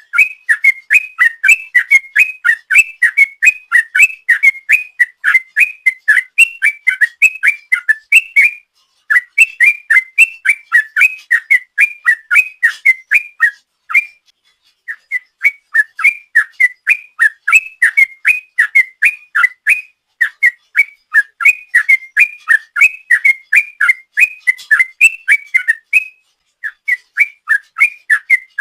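Yellow-vented bulbul (trucuk) singing its long 'ropel' song: a fast run of loud whistled notes, about four or five a second. The run breaks off briefly three times before carrying on.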